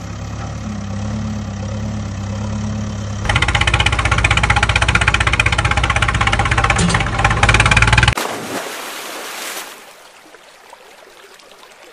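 An engine running steadily, then louder with a fast knocking rhythm about three seconds in. About eight seconds in it cuts off into a rush of splashing water that fades to a quieter flow.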